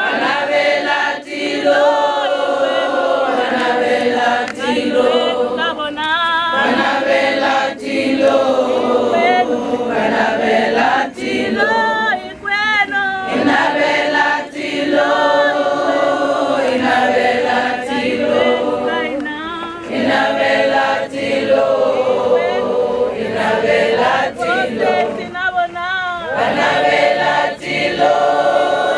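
A large crowd singing together without instruments, many voices holding long notes, with brief dips between sung lines.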